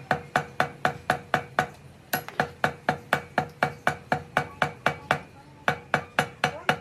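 Rapid metal-on-metal hammer blows, about four a second, each with a short ring, pausing briefly twice; steel striking at a bronze flanged valve clamped in a bench vise.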